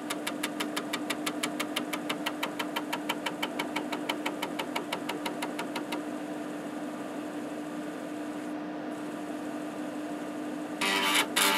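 Head stepper of a 5.25" floppy drive (Epson SD-800 combo drive) stepping the head one track at a time in an even run of clicks, about seven a second, over a 360K 40-track disk. The clicks stop after about six seconds, leaving only the steady hum of the drive running. Near the end, loud rapid buzzing of head movement starts.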